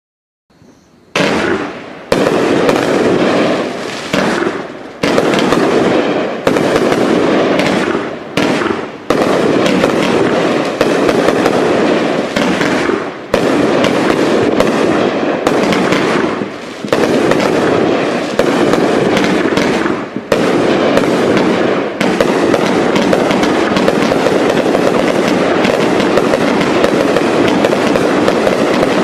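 Sunwing Captain's Finale consumer firework cakes firing, starting about a second in: shots and aerial bursts in rapid succession with brief lulls, running together into a continuous barrage from about two-thirds of the way through.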